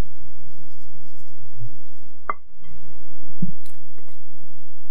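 Soft kitchen handling sounds of thick chocolate cake batter: a wire whisk working in a glass bowl, then the batter poured from the bowl into a paper-lined cake tin. There is a single sharp click about halfway through and a soft low thump a second later.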